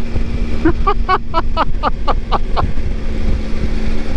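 Triumph Tiger 955i's three-cylinder engine running steadily at cruising speed, with wind buffeting the microphone. Starting just over half a second in, a quick run of about nine short falling chirps, about four a second, lasts roughly two seconds.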